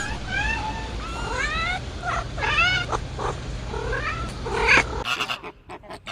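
An animal giving a run of high, arching pitched calls, several overlapping, cut off abruptly about five seconds in and followed by short, choppy calls.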